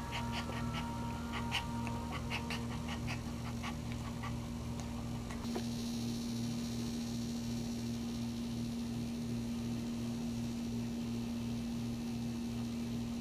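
Small dog in labour whimpering in short, high squeaks, two or three a second, that stop about five seconds in; a steady low hum runs underneath.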